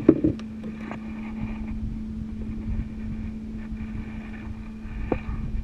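Motorized banca's small engine running steadily underway: a constant drone with a fixed hum, over wind and water noise. A couple of short knocks in the first half-second.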